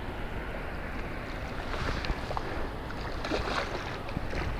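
Wind buffeting the microphone over choppy lake water washing against a concrete pier wall, a steady rushing noise with a few faint clicks around the middle.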